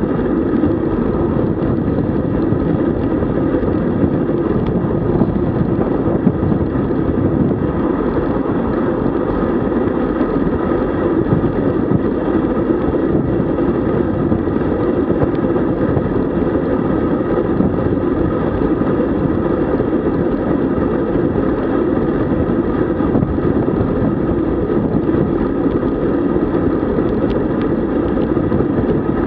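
Steady rush of wind on the microphone and road noise while riding a road bike at speed, with no breaks or changes.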